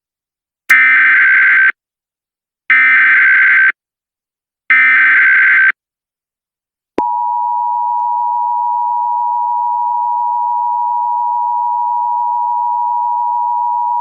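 Emergency Alert System SAME header: three one-second bursts of warbling digital data tones, about a second apart. About seven seconds in, the steady EAS attention tone starts and holds on one unchanging pitch, announcing the alert.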